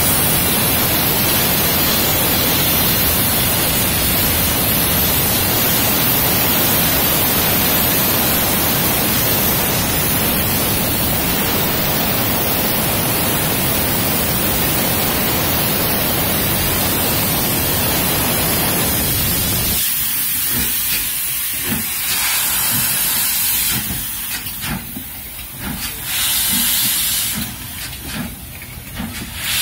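Steam locomotive LMS Princess Coronation Class 6233 'Duchess of Sutherland' starting away with its cylinder drain cocks open, a loud steady hiss of steam. About twenty seconds in the hiss drops away and slow, regular beats take over, with a few short bursts of hiss between them.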